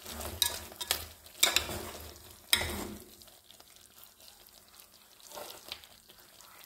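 Metal spoon stirring chunks of cassava cooking in a metal pot, clinking and scraping against the pot several times in the first three seconds over a low sizzle of the hot cooking liquid, then only the quieter simmer.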